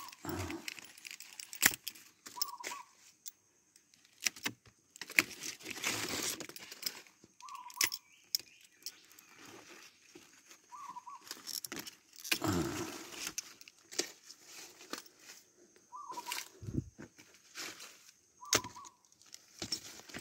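Hand pruning shears snipping twigs and small branches off a young jackfruit tree: sharp metallic clicks scattered throughout, with bursts of leaves rustling as the branches are handled.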